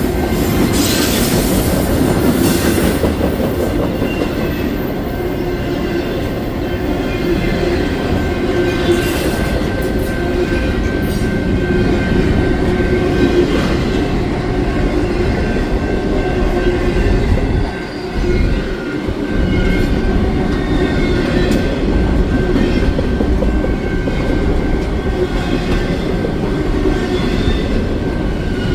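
Long freight train rolling past, its wheels clattering over the rail joints with a thin, steady wheel squeal. The sound dips briefly about two-thirds of the way through.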